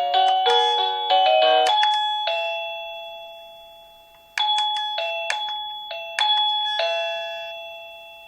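SilverCrest wireless doorbell chime playing its electronic melodies. A quick run of bell notes ends about two seconds in, followed by a slower tune of single struck notes, each ringing and fading away.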